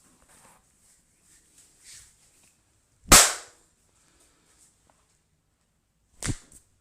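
Two sharp cracks: a loud one about three seconds in that rings briefly, and a second, quieter one near the end, with only faint taps and rustling between.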